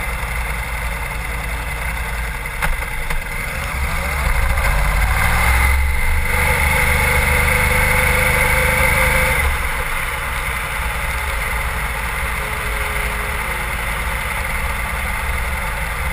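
Sport bike's engine running at low speed, the revs climbing about four seconds in, holding, then dropping back near ten seconds, over a steady hiss.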